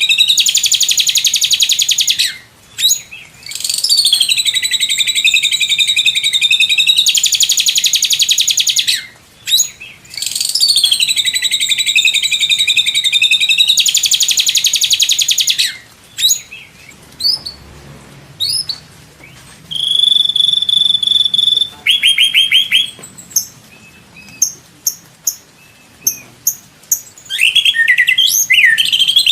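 White-rumped shama singing: long, very rapid high trills, the fast 'tembakan' phrases, run for about fifteen seconds with two brief breaks. Then scattered sharp single notes, one held whistle and a short quick series of notes, before varied gliding song picks up again near the end.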